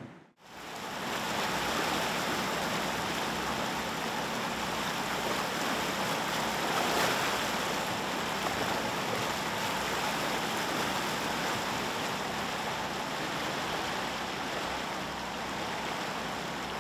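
Floodwater rushing, a steady roar that fades in after a brief gap at the start.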